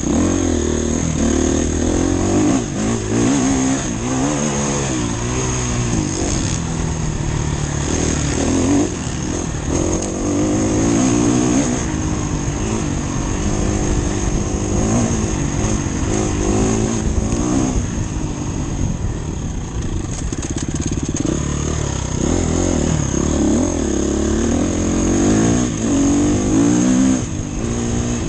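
Enduro motorcycle engine running under riding load off-road, its pitch rising and falling continuously as the throttle is opened and closed.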